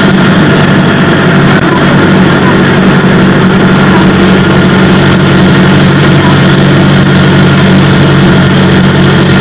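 Cessna 172R's four-cylinder Lycoming IO-360 engine and propeller heard from inside the cockpit: a loud, steady drone that holds one pitch, with no change in power.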